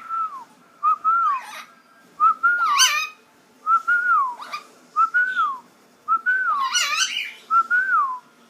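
Pet bird whistling a short phrase over and over, seven times about once a second, each note rising and then falling, with a couple of sharper high chirps mixed in.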